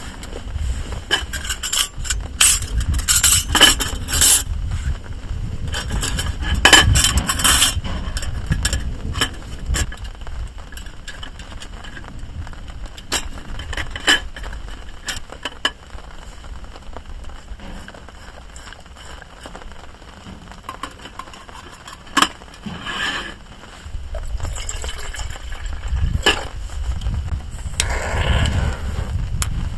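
Clinks, knocks and scrapes of teaware being handled while making green tea: a quick run of small clicks and clinks in the first few seconds and another a little later, then scattered single clicks, over a low steady rumble.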